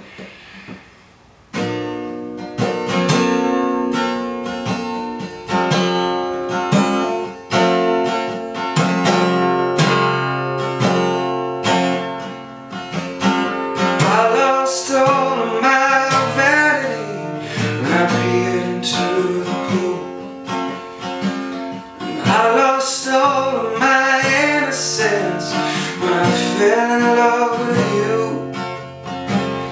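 Acoustic guitar strummed as a song's introduction, starting about a second and a half in after a quiet moment. From about halfway through, a man's voice sings over the guitar.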